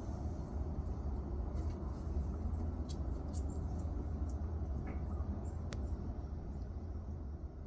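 Steady low background rumble with a few faint, sharp clicks, the clearest about three seconds in and near six seconds.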